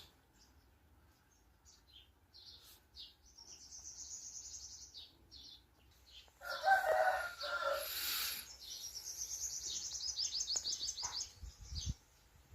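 A rooster crows once, starting about six seconds in, amid high, rapid chirping and trilling of small birds.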